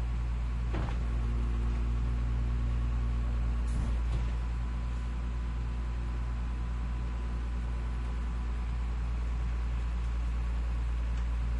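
Garbage truck engine idling with a steady low rumble, with a couple of faint knocks about one second and about four seconds in.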